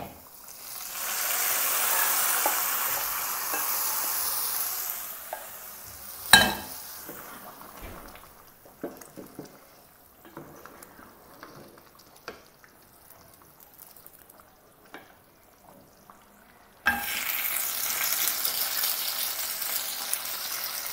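A hot tempering of fried onion and fenugreek seeds in oil poured into a pot of beef curry, hissing loudly for about four seconds and then dying down, with a sharp knock about six seconds in. Then soft clicks of a wooden spatula stirring the curry, and near the end a steady sizzle starts suddenly.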